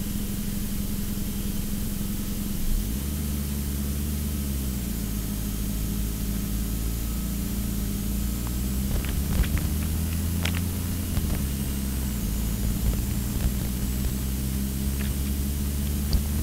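A car engine running as the vehicle drives along, its pitch rising and falling with speed, with a faint high whine above it.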